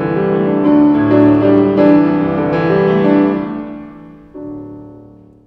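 Grand piano playing the closing postlude of a song: a few held chords that grow softer, then one last quiet chord about four seconds in that fades away.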